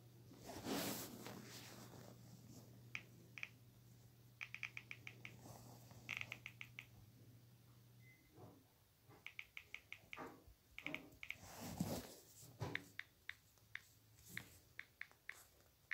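Faint quick clicks in bursts of several at a time, from typing on a phone's touchscreen keyboard.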